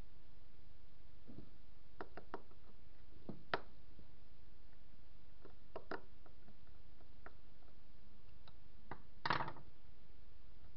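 Small metal clicks and taps from the carburettor of a Bernard type 427 engine and a thin metal tool as it is taken apart by hand. The clicks are scattered, the sharpest about three and a half seconds in, with a short, louder clatter about nine seconds in.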